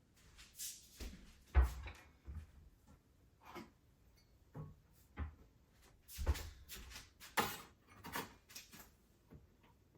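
A series of light knocks, clicks and clatters from household objects being handled and set down, a few with a dull thud and one sharper knock a little past the middle.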